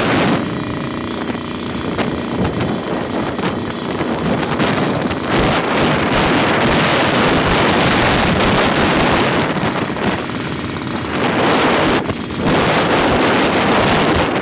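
Yamaha RX-King's 135 cc two-stroke single-cylinder engine running with the raspy, snoring exhaust note called 'ngorok'. It gets louder about five seconds in and dips briefly about two seconds before the end.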